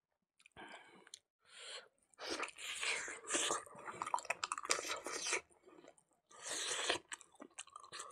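Close, wet chewing and crunching of a person eating pig snout with rice. It is sparse at first, turns steady from about two seconds in, and has a short pause late on.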